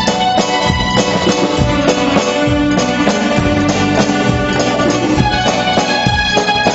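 Live band playing an instrumental passage: a pair of conga drums struck by hand in a steady rhythm under guitar and other instruments carrying the tune.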